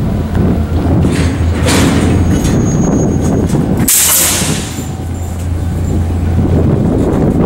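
Diesel locomotive engine running with a steady low hum, and a short hiss of air about four seconds in.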